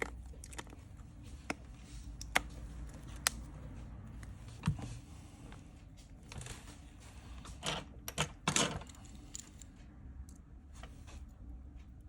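Scattered light clicks and taps of small tools and parts being handled and packed away, with a few short rustling scrapes about two-thirds of the way through.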